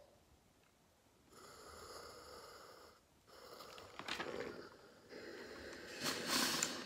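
Steam iron handled on an ironing board: a brief knock as it is picked up about four seconds in, then pressed onto the fabric with a short burst of hissing steam near the end.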